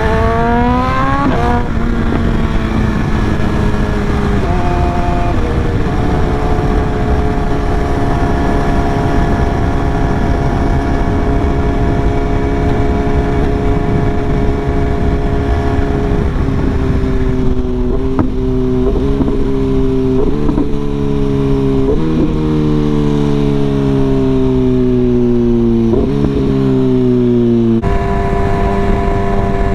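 BMW S1000RR's 999 cc inline-four engine under way at speed, with wind rush. Early on it revs up, and the quickshifter clicks it up through two gears with sharp drops in pitch. It then holds a steady cruise. In the second half the engine note keeps falling as the bike slows, broken by four or five quick jumps up in pitch: auto-blipped downshifts.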